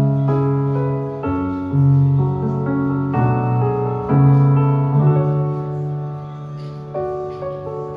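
Piano playing slow chords over low bass notes, the harmony changing every second or so.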